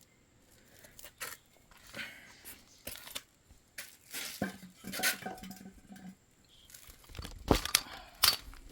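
Handling noise as the Raptor 700's stock oil tank is worked free and pulled out of the frame: scattered knocks, scrapes and rattles, with two sharper knocks near the end.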